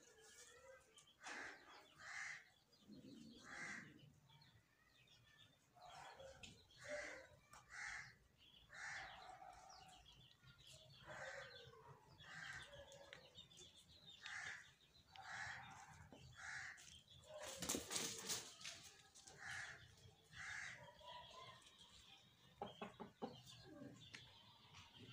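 Chicken clucking in short, faint calls about once a second, with a brief cluster of sharp rustles about two-thirds of the way through.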